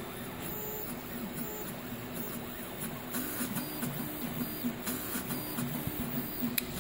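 Hypercube CoreXY 3D printer printing: its stepper motors whine in a string of short tones that change pitch with each move of the print head, early in the print.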